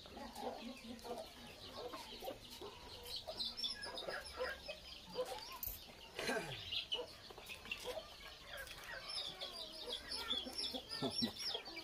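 Birds calling through the whole stretch, many short repeated clucking and chirping calls, with one longer call about six seconds in that falls sharply in pitch.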